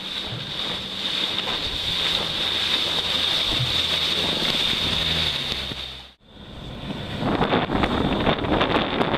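Outboard-powered aluminium boat running at speed over choppy water: a steady motor hum under rushing water and heavy wind on the microphone. The sound cuts off abruptly about six seconds in, then returns as rougher, gusting wind buffeting with water spray.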